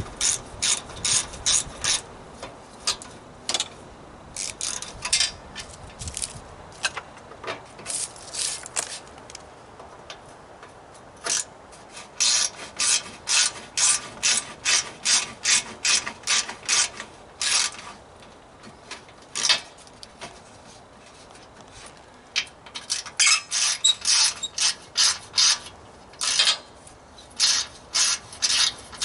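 Hand ratchet wrench worked back and forth to loosen fasteners, giving runs of quick ratcheting clicks at about three strokes a second, with short pauses between runs.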